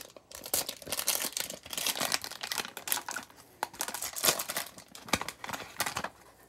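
Wrapper of a Topps baseball card fat pack being torn open and crinkled: a run of irregular crackling rustles that dies away near the end.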